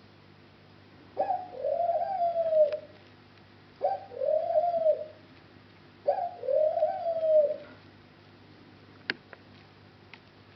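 A bird cooing in three calls, each about a second and a half long and about two and a half seconds apart. A couple of sharp clicks come near the end.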